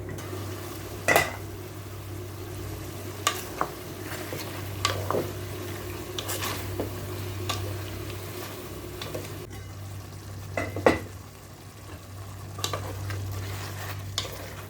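Chicken pieces frying with garlic and ginger in a pot, a steady sizzle with sharp clinks of a utensil against the pot now and then, over a steady low hum.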